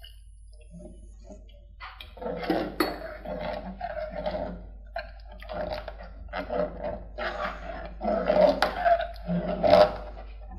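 Metal ladle stirring thick rice porridge in an aluminium pot: repeated scraping strokes against the pot with gloopy squelching from the porridge, starting about two seconds in.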